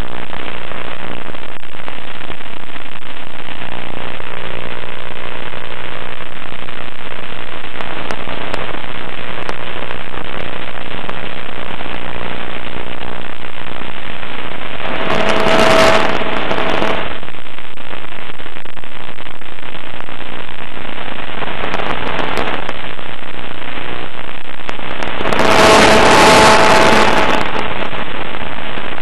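Loud, steady hiss and crackle on the audio of an FPV model plane's onboard camera in flight, with two louder bursts of crackling, one about halfway through and one near the end.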